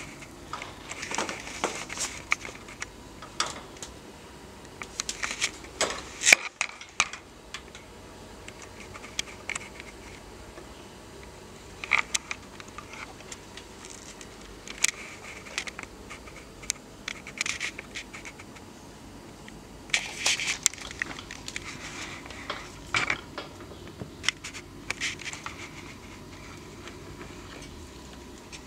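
Irregular rustling, scratching and clicking on towel bedding as the cats move about, coming in short clusters with quieter stretches between.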